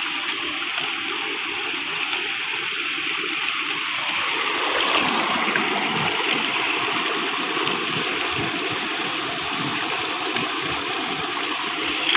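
Steady rushing water noise, with faint low knocks and rustles from about four seconds in.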